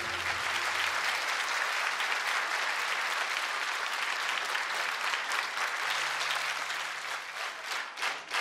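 Audience applauding: a hall full of steady clapping that thins to scattered claps near the end.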